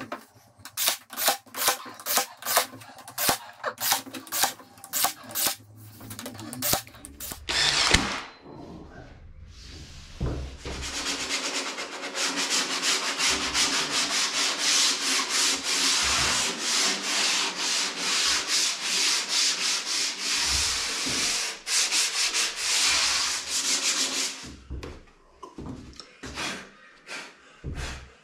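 Sandpaper rubbing along the edges of MDF wall panelling. For the first seven seconds it goes in brisk back-and-forth strokes, about two or three a second. A sharp knock comes about eight seconds in, then a long stretch of fast, continuous sanding before it slows to a few scattered strokes near the end.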